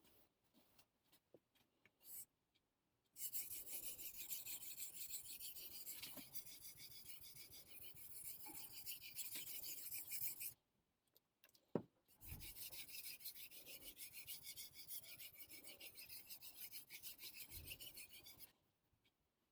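A steel knife blade scraped rapidly back and forth on the 800-grit side of a wet Naniwa combination Superstone, working out a dulled, rolled-over edge. The gritty strokes come in two long runs, separated by a short pause with a single click.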